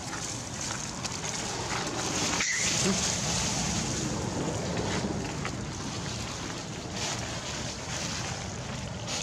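Wind rumbling on the microphone, with faint rustling of dry leaf litter.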